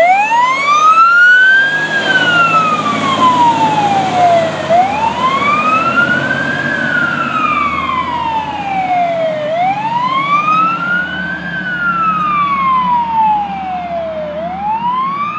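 Fire engine's siren on a slow wail, its pitch rising over about two seconds and falling back over about three, three times over, with the truck's engine running underneath. It grows gradually fainter as the engine pulls away.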